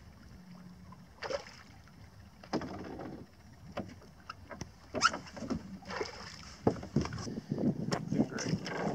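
Irregular water splashing and sloshing from a hooked redfish thrashing at the surface, with scattered sharp knocks, thickest near the end.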